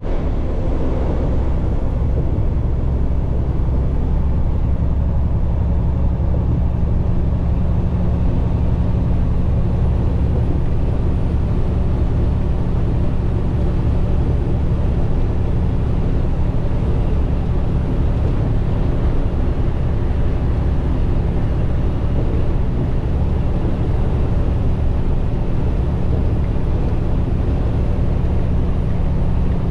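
Steady drone of a semi-truck's engine and tyre noise at highway speed, heard inside the cab. The sound is strongest in the low end and has no sudden changes.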